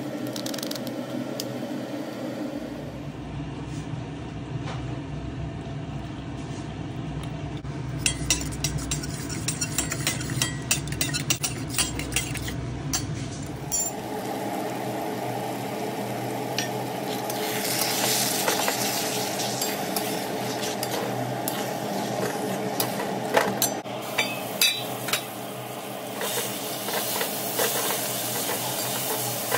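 Sliced onions frying in oil in a metal kadai, sizzling as a metal spatula stirs them, scraping and clinking against the pan. The sizzle grows louder about halfway through, with sharp clinks of the spatula on the pan now and then.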